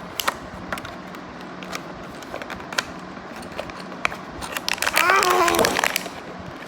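Packaging being handled and opened by hand: scattered clicks and crackles, then a louder rustling stretch with squeaky sounds about five seconds in.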